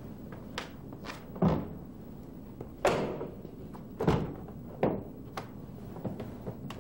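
Mercedes-Benz W210 E-Class rear door being pushed shut and handled: a run of sharp thunks, four loud ones about a second apart, with lighter clicks between.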